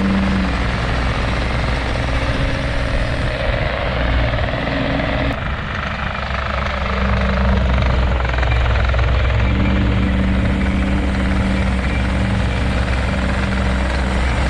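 Bobcat T66 compact track loader's diesel engine running steadily at high throttle while the machine is driven. The engine note drops briefly about five seconds in and comes back up about two seconds later.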